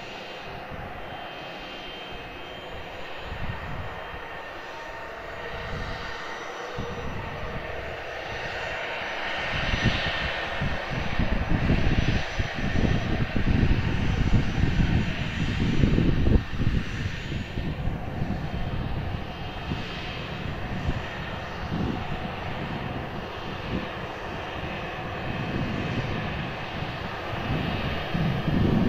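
Aircraft engines running at close range: a steady whine over an uneven low rumble, growing louder about ten seconds in and staying loud for several seconds before easing slightly.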